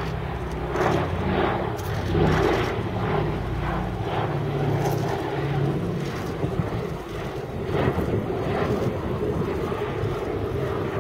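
Boeing B-17G Flying Fortress flying past, its four Wright Cyclone nine-cylinder radial engines droning steadily with a pulsing beat about twice a second.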